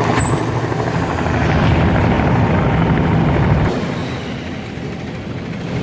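Aircraft engine running: a steady rushing noise over a low hum with a faint high whine, easing off about two-thirds of the way through.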